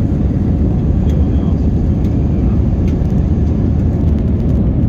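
Steady, loud jet cabin noise inside an Airbus A320-232, the hum of its IAE V2500 turbofan engines and the rush of air around the fuselage, holding even throughout.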